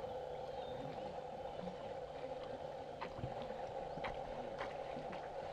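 Hot spring pool water lapping gently against its concrete edges, faint and steady, with a few small clicks a few seconds in.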